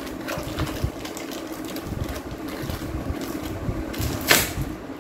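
Parcel packaging being forced and torn open: irregular scraping and crackling with small clicks, then one sharp rip a little past four seconds in.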